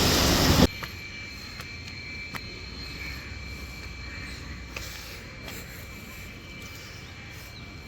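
A loud rushing noise cuts off abruptly under a second in. It leaves quiet outdoor ambience with two faint, steady high-pitched tones, like an insect trill, and a few light ticks.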